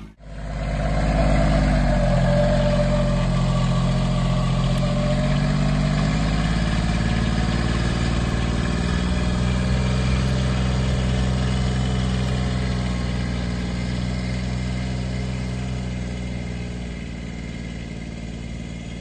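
John Deere utility vehicle's engine running steadily as it drives. Its pitch shifts a couple of seconds in, then settles, and the sound fades gradually near the end as the vehicle moves away.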